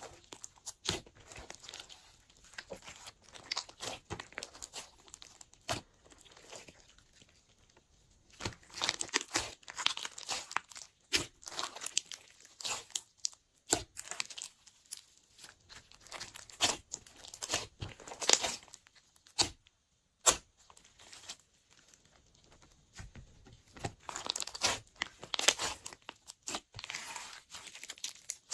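Glossy slime being kneaded and squished by hand, giving sticky clicks, pops and crackles in uneven bursts, with quieter spells about a quarter of the way in and again past the middle.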